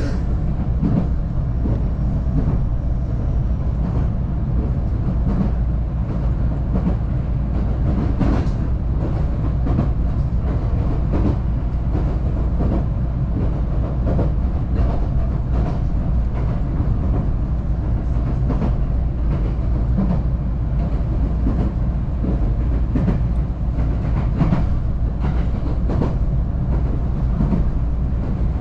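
Local electric train running between stations, heard from inside the carriage: a steady low rumble of the wheels on the rails with frequent irregular clicks and knocks as the wheels pass over rail joints.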